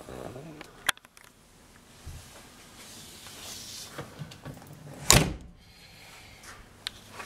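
A car door handled as someone gets out of the back of a 1956 Daimler 104: a sharp latch click about a second in, shuffling, then one loud door thunk about five seconds in.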